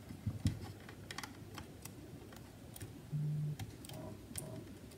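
Faint, scattered small clicks and ticks of fingers working a small cable connector and its latch free from a MacBook Air's DC-in I/O board.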